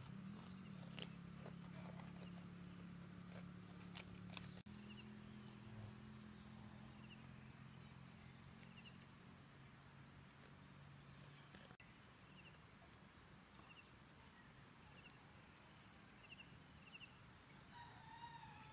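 Faint rural ambience. For the first few seconds a goat is grazing close by, tearing and chewing leaves with sharp clicks. After that there is a low steady hum that fades out, small high chirps about once a second, and a short call near the end.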